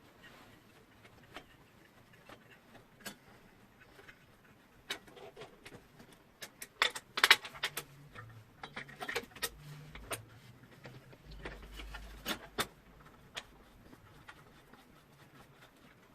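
Scattered clicks and knocks of an AS Schwabe twin 400-watt construction floodlight and its parts being handled, with a quick cluster of sharp clicks about seven seconds in.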